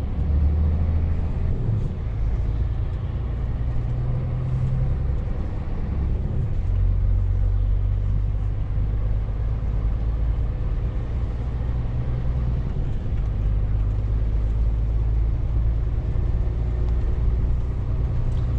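A Scania truck's diesel engine drones steadily, heard from inside the cab while driving, with road noise over it.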